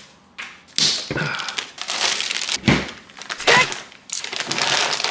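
Plastic packaging crinkling and rustling in irregular bursts as it is handled and opened, with small clicks and crackles.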